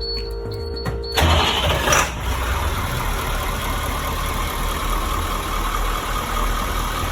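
International 7.3 V8 diesel cranking and firing about a second in, then settling into a steady idle. A steady electronic tone sounds just before it catches.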